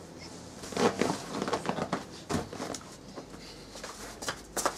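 Quiet rustling and light knocks of handling and movement, with brief faint murmured voices.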